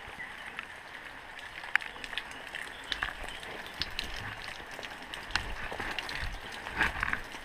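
Footsteps and leaves and branches rustling and brushing against a body-worn camera as someone pushes through dense undergrowth, with scattered sharp snaps and clicks, the loudest about two seconds in.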